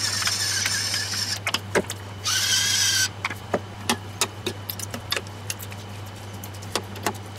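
Electric spice mill grinding peppercorns over the bowl: a whining motor with a gritty crunch that stops after about a second and a half, then a second short burst near the three-second mark. After that, metal spoons clink and scrape against a stainless steel bowl as the salad is tossed.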